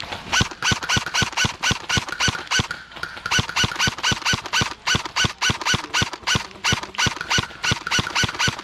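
Rhythmic squeaking with a sharp tick on each beat, about five a second and very even, from an airsoft player's gear while he runs forward.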